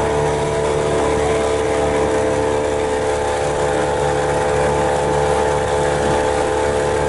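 Motorboat engine running at a steady speed, a constant even drone with no change in pitch.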